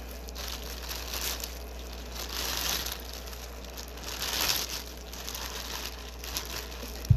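Thin plastic crinkling and rustling in several surges as gloved hands rummage in a plastic seafood-boil bag, with a short low thump near the end.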